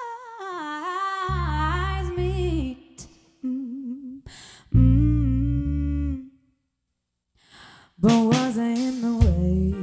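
Live soul-rock band performance: a lead singer holds long notes with a wavering vibrato over a few heavy, held band hits. The band drops out for about a second and a half, then comes back in with strummed chords near the end.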